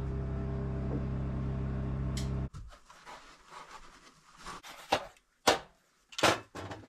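A power generator running with a steady low hum, which cuts off abruptly about two and a half seconds in. After that come soft rustles and a few sharp knocks as rock wool insulation slabs are handled and pressed into place between wooden studs.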